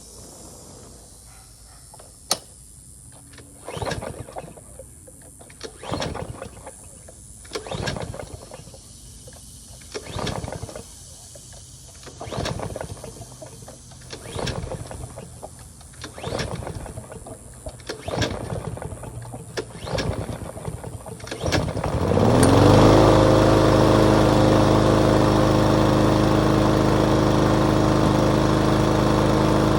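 Craftsman M230 walk-behind lawn mower being pull-started: a string of recoil-starter pulls about every two seconds, then the engine catches about 22 seconds in, revs up briefly and settles into steady running.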